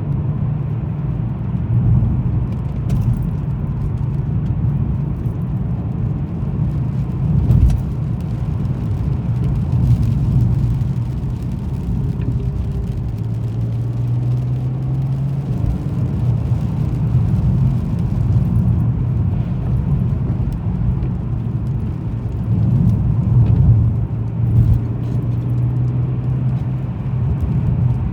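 A car being driven on the road: steady low engine and tyre rumble, with the engine's hum rising and settling slightly at times.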